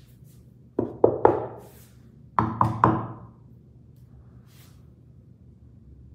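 Knuckles knocking on the black centre panel of a wooden dining table: two quick sets of three knocks, about a second and a half apart, each knock with a short ring.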